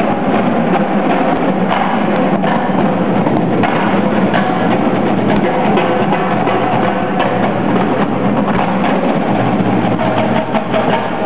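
Marching drumline of snare drums, tenor drums and pitched marching bass drums playing together in a gymnasium, a dense run of continuous drumming.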